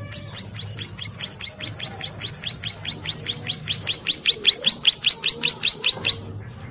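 Caged prinia (ciblek sawah) singing a long, fast series of sharp downward-slurred notes, about five a second, growing louder and cutting off abruptly about six seconds in: the rapid drilling song that keepers call ngebren.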